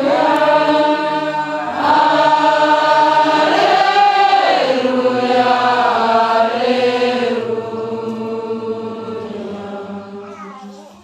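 Voices singing a slow chant in long held notes, fading out over the last few seconds.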